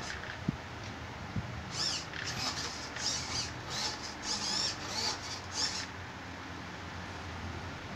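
Small servo motors in a home-built robot's pan-and-tilt neck whining as they move its tablet head: a string of short, high-pitched squeaky whines from about two to six seconds in.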